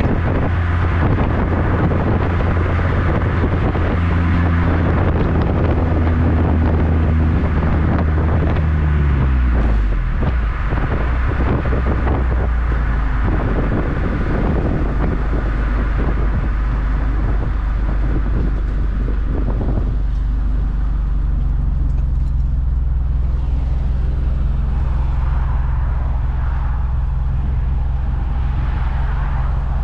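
2010 Toyota Corolla XRS's 2.4-litre four-cylinder through a Borla aftermarket exhaust, heard right at the tailpipe. A steady exhaust drone while driving drops in pitch about ten seconds in as the car slows, with road and wind noise over it. From about twenty seconds in it settles to a steady low idle.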